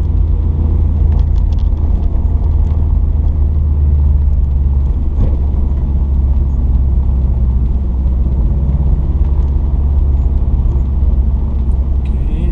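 Steady low rumble of a car driving, heard from inside the cabin: engine and tyre noise on a city street.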